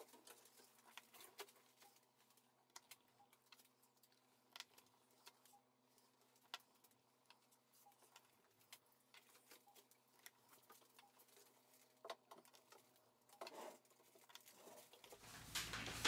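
Near silence broken by faint, scattered small clicks and taps: a tool and gloved fingers fitting parts inside an opened smartphone. In the last second a rush of noise swells up.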